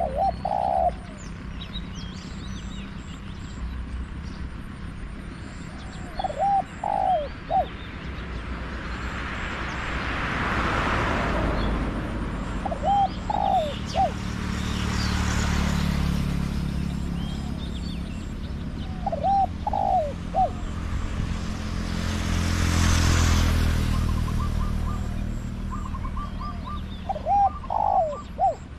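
Spotted dove cooing, a short phrase of a few notes about every six or seven seconds, five phrases in all. Passing vehicles swell and fade three times between the calls, and small birds chirp faintly.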